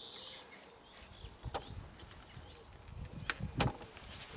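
A few sharp little metal clicks, the strongest two close together about three seconds in, as a circlip is pressed back onto the spindle of a Garrard 3000 turntable's auto-stop trip mechanism.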